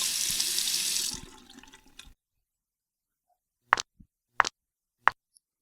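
Water running from a tap for hand-washing, fading out about two seconds in. Then three short, sharp clicks about two-thirds of a second apart.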